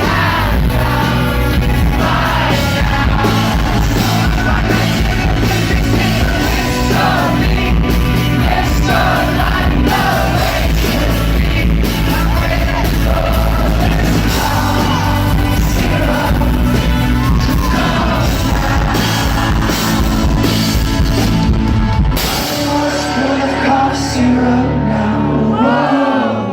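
Live rock band playing loud with singing, drums, bass and guitars. About 22 seconds in the drums and bass drop out, leaving a held chord and voices.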